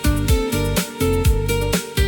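Lounge pop music between vocal lines: held instrument chords over a steady beat of bass and kick drum, with some plucked guitar.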